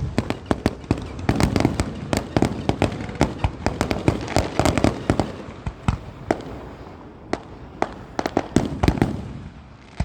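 Fireworks display going off in a rapid barrage of sharp bangs and crackles, thinning to scattered reports after about six seconds.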